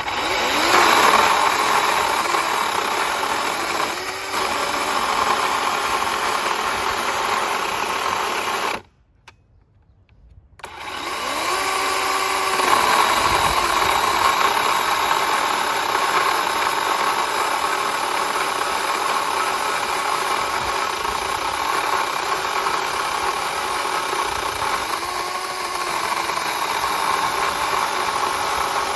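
DeWalt 20V battery-powered chainsaw with a 16-inch Oregon bar running under load, ripping lengthwise through a log in a mini chainsaw mill. The motor winds up at the start and stops for about two seconds about a third of the way in. It then winds up again and runs steadily.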